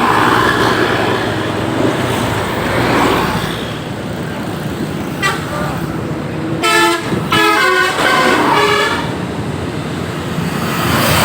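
Bus 'telolet' basuri multi-tone air horn: a brief note a little before the middle, then a quick run of changing notes for about two and a half seconds. Underneath is the steady noise of heavy road traffic and bus engines.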